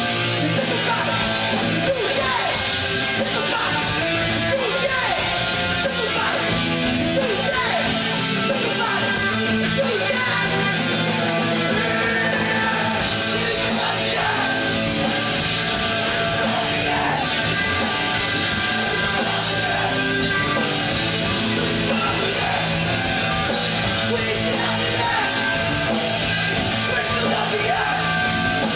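Live punk rock band playing at full volume: electric guitar, drums and sung and shouted vocals.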